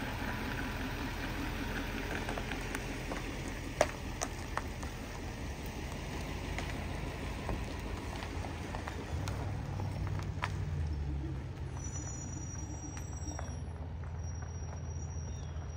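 Pickup truck engine idling with a low steady rumble, heavier in the second half, with scattered light clicks and one sharp tap about four seconds in.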